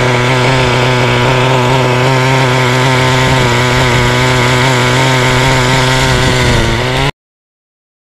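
Traxxas T-Maxx nitro RC truck's small two-stroke glow engine idling steadily and loudly at a high, even pitch while the truck sits still. The sound cuts off abruptly about seven seconds in.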